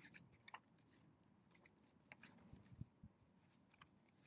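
Near silence with faint crisp rustles and clicks of a large paper picture book being opened and its cover turned, and a couple of soft low bumps about two and a half to three seconds in.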